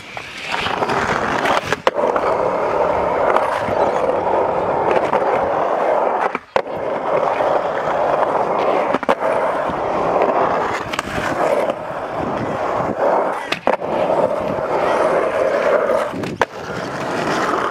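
Skateboard wheels rolling on a concrete skatepark, a steady rumble from a small plastic cruiser board, broken by about half a dozen sharp clacks of the board against the ground.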